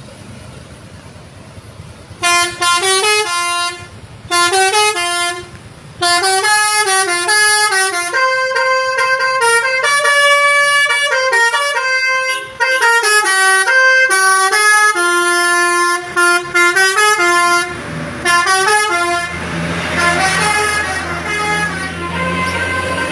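Tour bus's basuri telolet horn playing a melody of quickly changing notes. Two short phrases come about two and four seconds in, then a long unbroken run of tunes. Near the end the horn gives way to engine rumble and a rushing noise.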